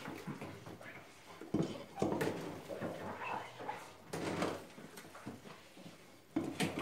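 Dishes being washed by hand in a kitchen sink: water running from the tap, with a few irregular clinks and knocks of bowls and plates being scrubbed and set down.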